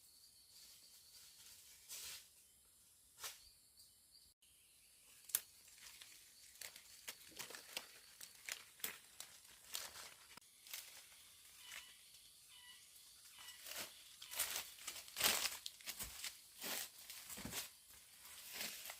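Irregular rustling, crackling and snapping of leaves and plant stems, growing denser and louder in the second half.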